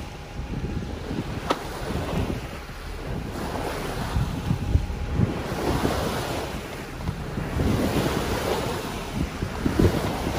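Sailboat's bow pushing through choppy sea: water rushing and splashing along the hull, swelling and easing with each wave, over heavy wind buffeting the microphone. A single short click about a second and a half in.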